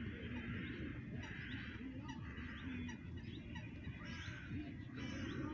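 Repeated honking calls, roughly one a second, over a steady low rumble.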